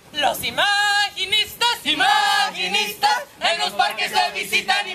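Several voices singing together, with a couple of long held notes in the first half and quicker phrases near the end.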